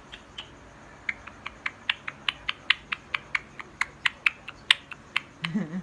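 Indian ringneck parrot making a rapid series of sharp clicks, about five a second, for several seconds.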